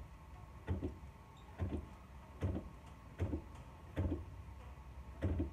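Mitsubishi Adventure's hydraulic clutch being worked by its pedal, a short double knock from the pedal and release linkage with each stroke, six times at a steady pace of about one a second, after the slave cylinder has been rebuilt and bled.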